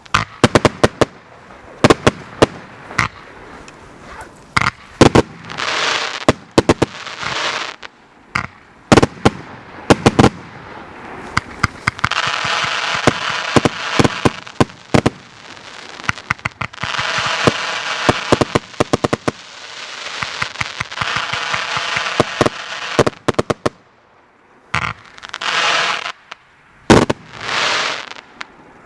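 Fireworks battery (cake) firing: a fast, irregular run of sharp shots and bangs, with long stretches of dense crackling from about twelve seconds in and two shorter crackling bursts near the end.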